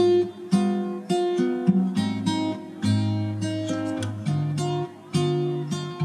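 Background music played on acoustic guitar, with chords changing every second or so.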